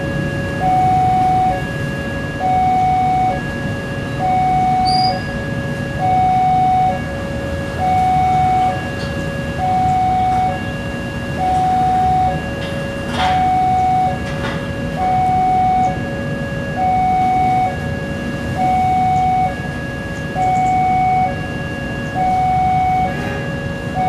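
Railway level-crossing alarm sounding continuously: an electronic two-tone signal swinging between a higher and a lower note, about one high-low cycle every second and a half. A low steady rumble runs underneath.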